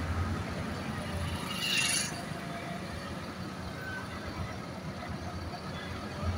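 Diesel engine of a heavy-haul tractor unit running with a steady low rumble, with a brief hiss about two seconds in.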